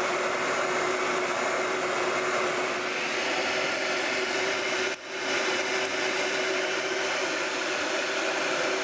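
Electric hot air gun running steadily, a fan whir over rushing air, heating the inner race of a new annular bearing so that it expands enough to drop onto the shaft. The sound dips briefly about halfway through.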